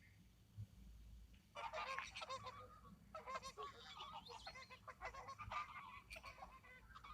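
A flock of waterfowl calling: many short calls overlapping densely, starting about a second and a half in.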